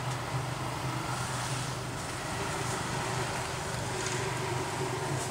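A motor running steadily in the background, a low even drone with a light hiss over it.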